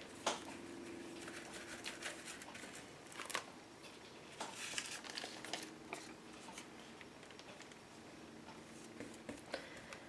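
Soft, scratchy swishes of a paintbrush spreading Mod Podge over paper, with paper pages being handled and pressed down. A faint steady hum sits underneath.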